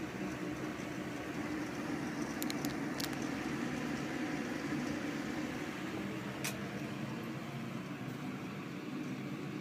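Mitsubishi EFG-20KB pressure ventilation fan running steadily with an even whooshing hum, plus a few light clicks about two and a half to three seconds in and again past six seconds.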